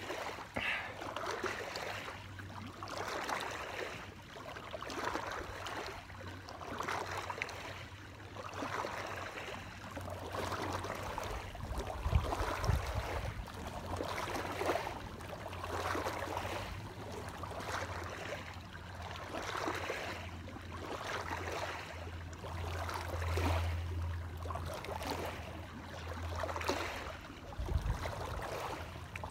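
Small waves lapping against the rocky lake shore in soft, regular swells every second or two, over a steady low rumble. A duller thump stands out about twelve seconds in and again near the end.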